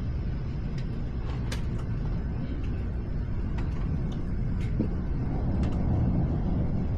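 Night thunderstorm ambience: a steady low rumble that swells a little about five seconds in, with scattered sharp ticks.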